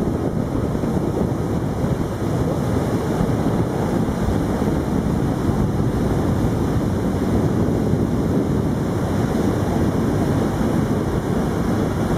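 Wind buffeting the microphone on a moving motor boat, with water rushing past the hull: a steady, loud rush that stays the same throughout.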